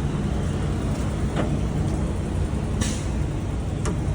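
Heavy vehicle engines idling with a steady low rumble, with a brief hiss of air about three seconds in and a few light clicks.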